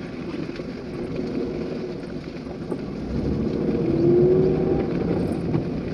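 Car driving along an unpaved dirt road, heard from inside the cabin: a steady engine and tyre rumble that grows somewhat louder about three seconds in.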